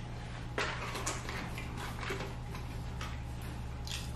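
Close-up eating sounds: an irregular run of sharp clicks and crackles from chewing fast food and handling its paper wrapper, the sharpest about half a second in, over a steady low hum.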